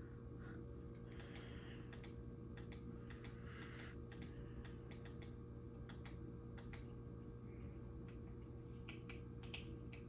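Faint, light clicks and taps at an irregular pace, a few each second, over a low steady hum.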